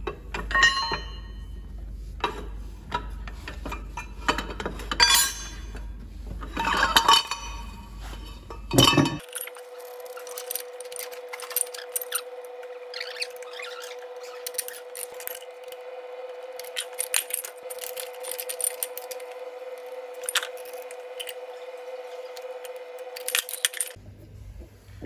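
Metal clinking and knocking of hand tools and parts while a MAN D2866 truck diesel engine is being dismantled. About nine seconds in the sound changes abruptly to lighter, scattered clicks over a steady hum.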